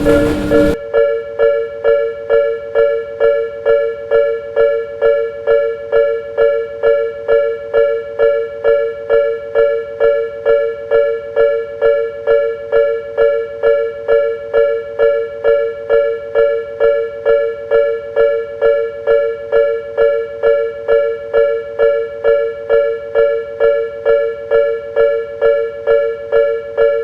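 Japanese railway level-crossing alarm ringing its electronic 'kan-kan' bell, a two-tone ding repeating evenly about twice a second.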